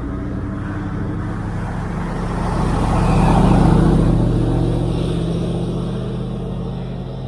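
A motor vehicle's engine passing close by, growing louder to a peak about three and a half seconds in and then fading.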